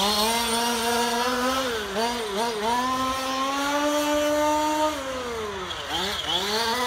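Radio-controlled model car's motor running at speed, its pitch rising on the straights and dipping as the car slows for corners. It holds a high, steady pitch for a couple of seconds in the middle, drops about five seconds in, and picks up again near the end.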